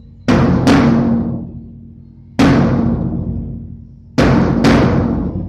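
Large bass drum struck five times, a quick pair, a single hit, then another quick pair, each stroke booming and ringing on as it slowly fades.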